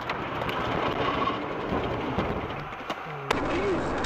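Road noise inside a moving car: tyres running on a wet road, which cuts off abruptly about three seconds in and gives way to another car's steady driving noise.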